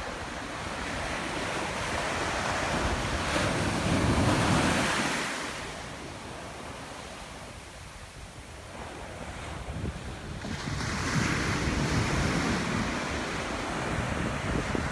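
Small ocean waves breaking and washing up a sandy beach. The surf hiss swells about four seconds in, eases off, then swells again near eleven seconds, over a low rumble of wind on the microphone.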